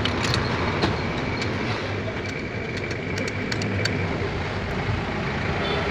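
Steady background rumble of road traffic, with a scattering of short, light clicks of hand tools being handled and fitted.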